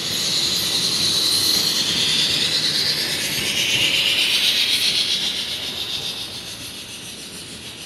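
A train passing on the station tracks: a loud rush of wheels on rail with a high squealing note that slides a little lower. It swells through the first half and fades away over the last few seconds.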